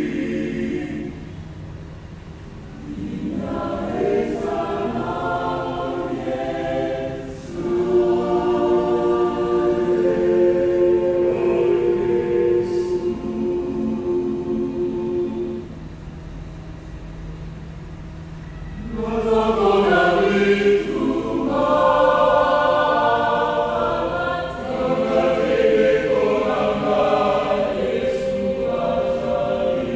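Mixed choir of Salvation Army songsters, women's and men's voices, singing a hymn in held chords. The singing is quieter near the start and again about halfway through, then swells back up.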